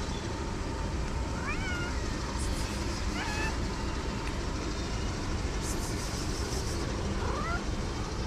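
Stray cats meowing: three short meows rising in pitch, about a second and a half in, around three seconds in and near the end, over a steady low rumble with two brief rustles.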